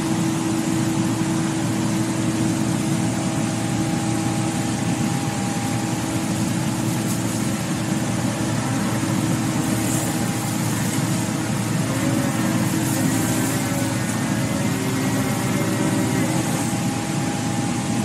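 Crawler excavator's diesel engine running steadily as the machine works, a constant drone with one strong steady tone.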